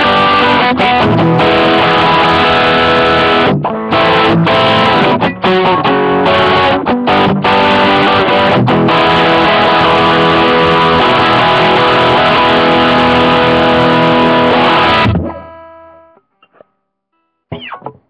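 Electric guitar played through a Roland GR-55 guitar synthesizer modelling a Les Paul Standard into a Roland JC-120 amp model with RAT distortion, ringing chords and notes. The playing stops about 15 seconds in and the last notes die away. A few faint clicks follow near the end.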